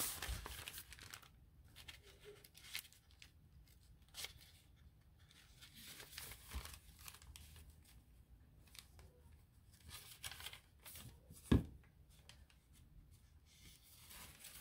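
Paper pages of a journal signature being handled and leafed through: soft rustling with small scattered clicks, and one sharp knock late on.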